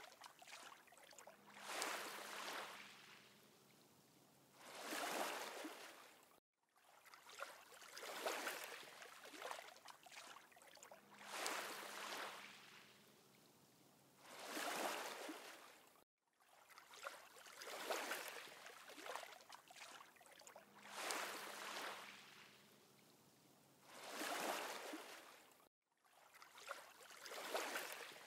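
Faint looped water ambience: soft swells of washing water rise and fade about three times every ten seconds. A brief cut-out marks where the same loop starts over.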